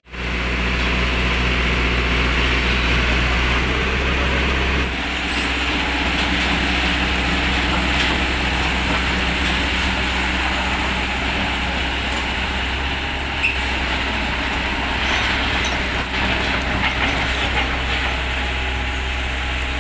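Hitachi Zaxis 110 excavator's diesel engine running with a steady low drone.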